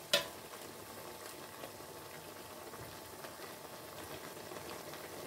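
A metal ladle clinks once against a stainless steel pot just as stirring begins, then pork adobo with broccoli and green beans simmers with a steady bubbling, with faint light scrapes and ticks from the ladle in the pot.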